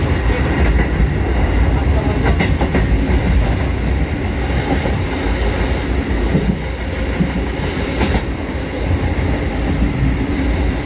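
Kotoden 1200-series electric train running, heard from inside at the front of the car: a steady low rumble of wheels on rail. A few sharp clicks from the wheels on the track come about two seconds in and again about eight seconds in.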